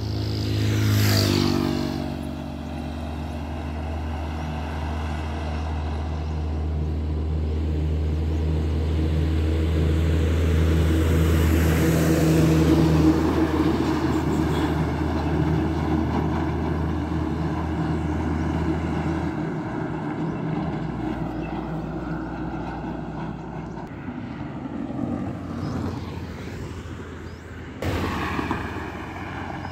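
Highway traffic passing close by. A vehicle rushes past at the start with a falling pitch, then a heavily loaded multi-axle truck's diesel engine drones low and steady as it approaches and passes, loudest about twelve seconds in. Near the end a motorcycle and a van go by.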